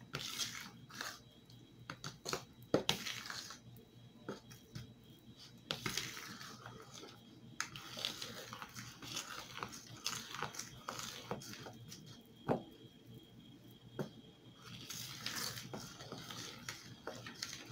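Metal spoon stirring thick pancake batter in a plastic mixing bowl: faint, irregular scraping and wet stirring, with light clicks and knocks as the spoon hits the side of the bowl.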